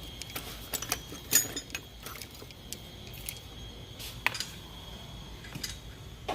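Metal tools and parts clinking as they are handled during wheel refitting: a handful of sharp metallic clicks, several in the first two seconds (the loudest about a second and a half in) and a few more around four and five and a half seconds in.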